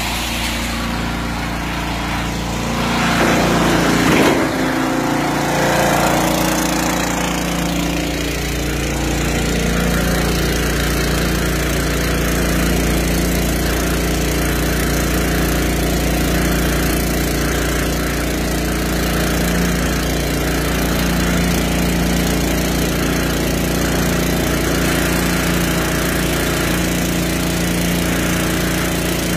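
Small engine-driven water pump of a bowser skid unit running, pumping water through a corrugated outlet hose into a 1000-litre IBC tote. The engine note picks up and wavers a few seconds in, then settles into a steady run.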